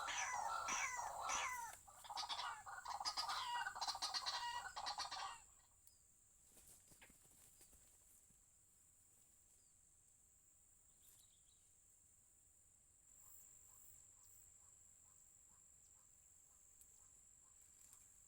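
White-breasted waterhen calling: a rapid run of loud repeated calls, about two to three a second, that cuts off abruptly about five seconds in. After that only a faint background remains, with faint short repeated notes near the end.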